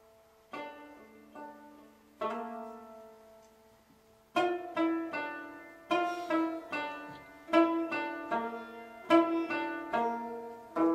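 Plucked string instrument playing a slow melody of single notes that ring and fade: a few sparse notes at first, then quicker and louder from about four seconds in.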